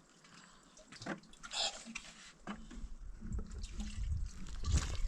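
Water splashing and dripping in short, scattered bursts, with a brief hissing splash about a second and a half in and a low rumble in the second half.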